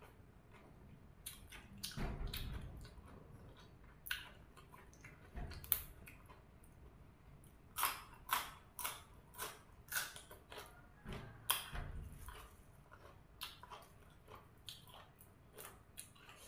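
A person biting and chewing crisp raw vegetables close to the microphone: sharp crunches, sparse at first, then a quick run of them about two a second from about halfway through.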